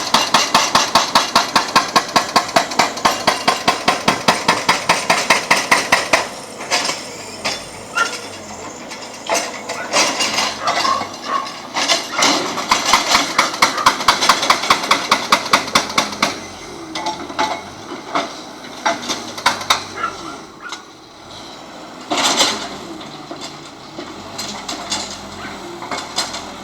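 Backhoe-mounted hydraulic breaker hammering in rapid strikes, about seven or eight a second, in a steady run for the first six seconds, then in scattered strikes with another steady run about halfway through, over the machine's engine running.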